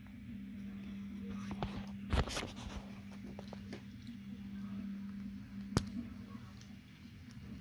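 Small plastic Kinder Joy toy pieces being handled and fitted together: a cluster of clicks and rustles about two seconds in, then one sharp click near six seconds. A steady low hum runs underneath.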